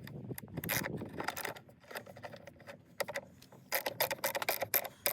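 Metal clicking and clinking of a socket wrench on battery terminal nuts as the terminals are refitted and tightened, in two bunches of rapid clicks, the second and busier one about four seconds in.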